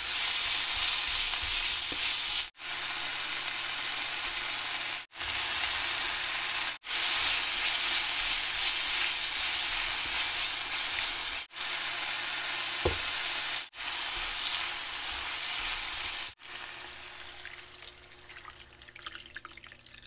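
Chicken breast, onion and mushrooms sizzling steadily as they are stir-fried and stirred with a spatula in a nonstick pan. The sizzle cuts out briefly several times, and there is a single knock a little after the middle. Near the end it grows quieter as water is poured into the pan.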